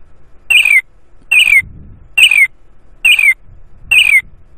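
Scratch's stock bird sound effect played over and over by a looping script: a short squawk that falls in pitch, repeated about once a second, five times.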